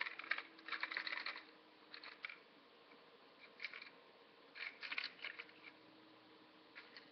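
Light clicks and rattles of small hard pieces being handled, in a few short clusters, from the Lego gumball machine and the money just taken out of it.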